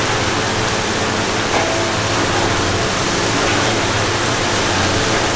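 A machine running, heard as a loud steady hiss over a low, even hum.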